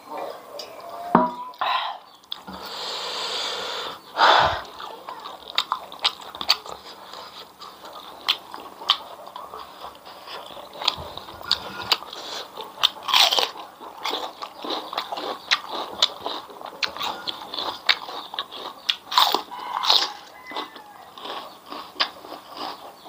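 Close-up eating sounds: crunchy biting and wet chewing of raw bitter gourd dipped in sambal, with several sharper, louder crunches.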